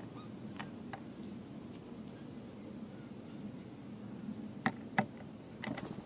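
Quiet backyard background with a few sharp clicks. The two loudest come close together near the end.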